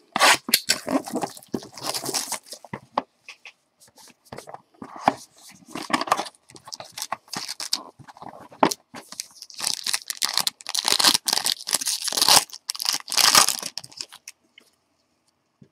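Trading card pack wrapper being torn open and crinkled by hand, in irregular ripping and rustling bursts that are heaviest in the last third.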